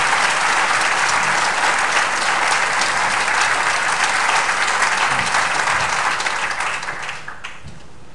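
Large audience applauding: dense, steady clapping that dies away about seven seconds in.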